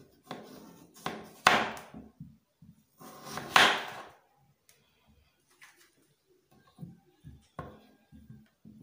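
Kitchen knife slicing through a peeled raw potato on a wooden surface: two strokes, each about a second long, about two seconds apart. A few soft taps follow later as the slices are set down.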